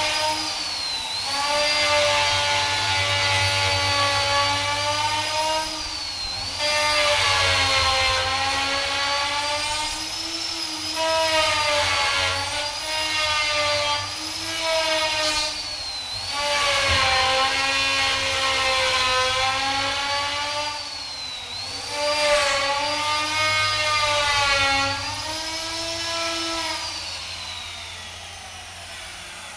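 Electric power tool motor running while cutting wood, its pitch sagging and recovering over and over as the load comes and goes.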